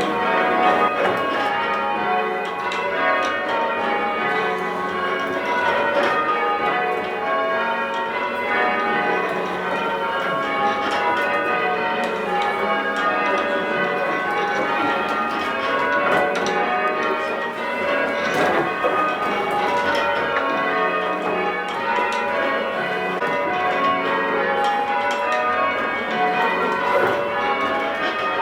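Church bells being rung in changes: a ring of bells struck one after another in a continuous, even stream of ringing strikes.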